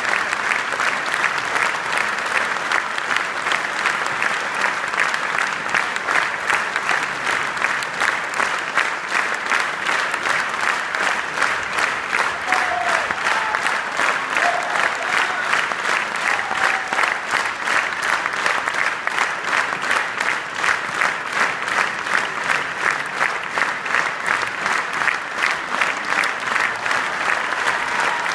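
Theatre audience applauding a curtain call: a full house clapping. After several seconds the clapping settles into a steady rhythmic unison beat.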